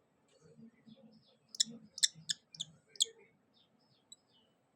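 Shikra chicks giving a quick run of short, sharp high-pitched calls, about six in a second and a half, with soft low shuffling sounds beneath.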